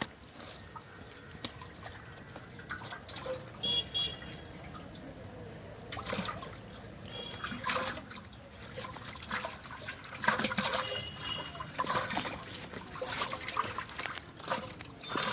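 Water splashing and sloshing in irregular bursts, heaviest about halfway through.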